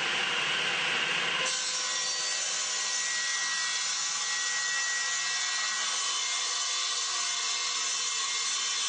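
Table saw blade cutting through a board during a bevel rip cut. The cut ends about a second and a half in, and the saw then keeps running unloaded with a steady whine.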